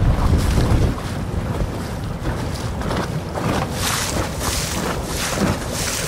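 Strong wind buffeting the microphone in a low rumble, heaviest in the first second, with choppy lake waves washing and splashing against the boat.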